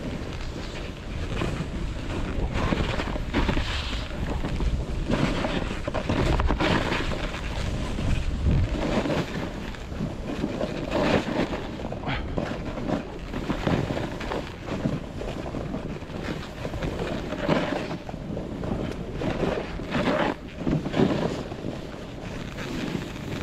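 Wind rushing over the microphone of a camera moving down a ski slope, with edges scraping and hissing over packed snow in irregular surges. There is heavy low rumble in the first half.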